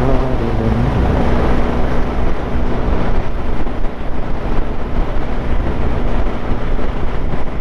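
Vehicle engine and road noise while moving at speed: a steady low rumble with a constant hum under it.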